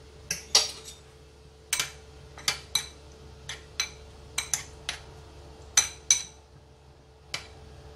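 Metal spoon stirring sauce in a ceramic bowl, clinking sharply against the bowl about fourteen times at an uneven pace.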